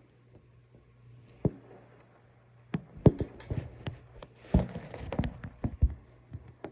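Scattered knocks and taps: one about a second and a half in, then quick clusters around three seconds and from about four and a half to six seconds in.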